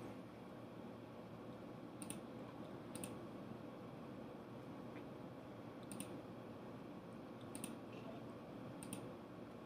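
A computer mouse clicked five times at uneven intervals, over faint room tone.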